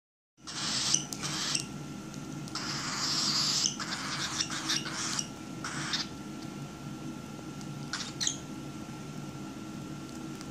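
Young cockatiel pecking at and crunching seeds on a towel: a run of short crunching, rustling bursts, then a few single light pecks.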